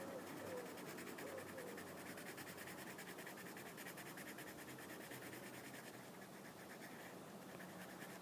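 Faint, rapid scratching of a soft-cored Winsor & Newton coloured pencil being stroked back and forth across paper, shading in a colour swatch.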